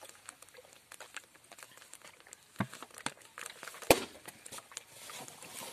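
A man gulping water from a plastic bottle, the thin plastic crackling and clicking as he drinks. A sharp knock comes about two and a half seconds in, and a louder one about four seconds in.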